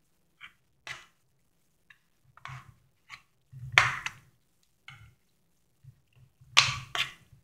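Metal spoon stirring and scraping thick mashed pumpkin in a pan: irregular short scrapes and soft knocks against the pan, loudest about four seconds in and again near the end.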